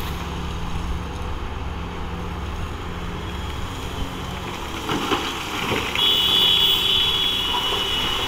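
Komatsu PC2000 hydraulic shovel's diesel engine running with a steady low drone while the shovel works a bucket of coal. There are a few knocks about five seconds in, and from about six seconds it gets louder and a high steady whine joins, as the loaded bucket swings over the dump truck.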